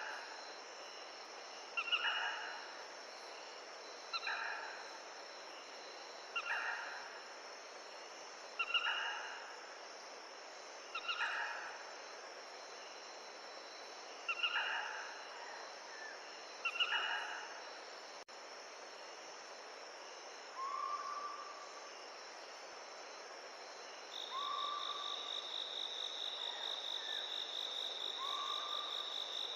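Forest ambience: a steady rush of running water with an animal call repeated about every two seconds, then three softer, lower calls. About two-thirds of the way in, an insect starts a steady high trill.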